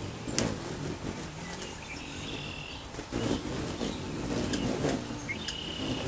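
Hummingbirds at a nectar feeder: the hum of their wings rises and fades as they dart past. Twice there is about a second of high, squeaky chattering, the kind they make while chasing each other off the feeder. Two sharp clicks come through as well, one just after the start and one about halfway.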